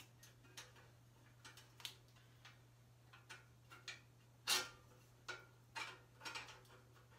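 Light, irregular metallic clicks and clinks of a bicycle's front axle hardware (axle, washers and nuts) being handled as the wheel is fitted into the forks, the loudest about four and a half seconds in. A steady low hum runs underneath.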